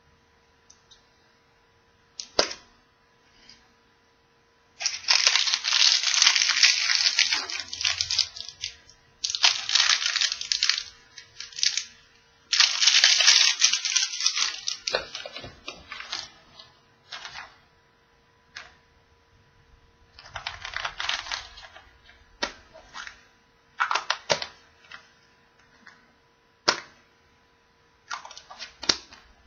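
Hands crinkling and tearing the wrapping off a glitter-covered surprise egg in several bursts of a few seconds each. Sharp single clicks follow near the end, from a yellow plastic toy capsule being handled.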